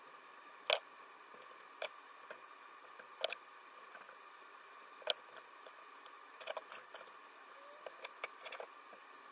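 Kitchen knife trimming raw chicken thigh on a plastic cutting mat over a wooden board: a few short, sharp taps of the blade against the board, spaced a second or two apart with a quick cluster near the end, over a faint steady hum.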